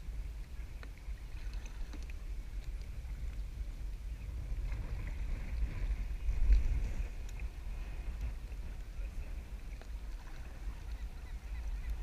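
Water sloshing and splashing around a sea kayak, with wind rumbling on the microphone. It swells briefly about halfway through.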